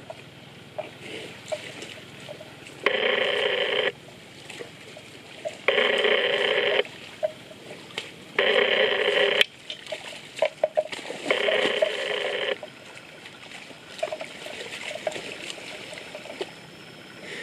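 A phone ringing four times, each ring about a second long with a gap of nearly two seconds between them. Between the rings come faint splashes and sloshing from a water buffalo wading and settling into a muddy wallow.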